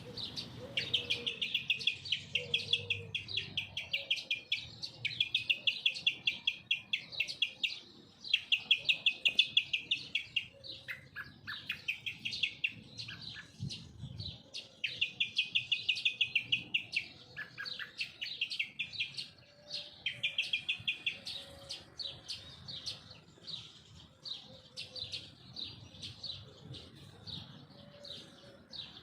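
A small bird chirping in fast runs of high, rapidly repeated notes, each run lasting one to two seconds with short pauses between. In the second half the runs become fainter and more scattered.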